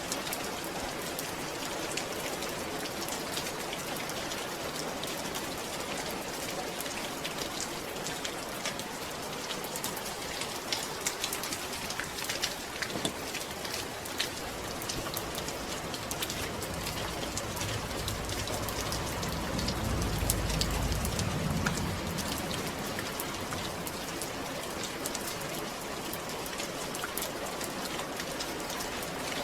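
Steady rain falling, a dense patter of drops hitting a surface. About two-thirds of the way through, a low rumble swells and fades.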